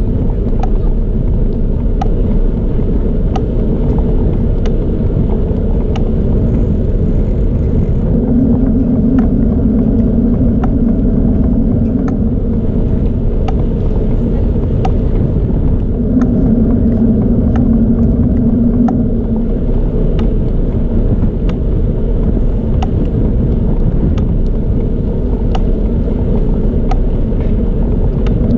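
Wind and tyre rumble from a moving bicycle on a paved path, picked up by a camera mounted on the bike: a loud, steady low rumble. A light tick repeats about every two-thirds of a second, and a low hum swells twice for a few seconds.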